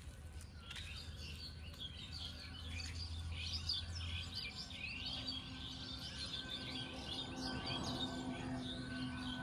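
A busy chorus of small birds chirping and twittering, many quick high calls overlapping, busiest in the middle of the stretch.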